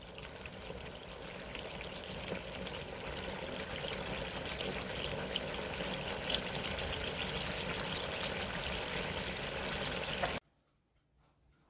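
Tomato sauce simmering in a frying pan, bubbling and popping with a fine crackle, slowly getting louder and stopping abruptly near the end.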